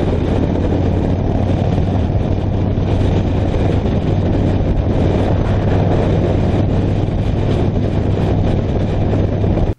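The S&S 111 cubic-inch V-twin of a 2006 American Ironhorse Texas Chopper running steadily at freeway cruising speed, heard from the rider's seat. It comes as a steady low drone under a continuous rush of wind and road noise.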